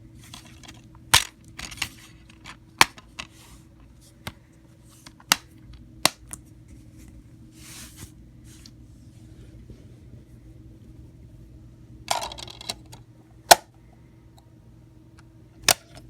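Irregular sharp clicks and knocks, about a dozen spread unevenly, with a few short rustling bursts, over a faint steady low hum. The loudest click comes a little past halfway.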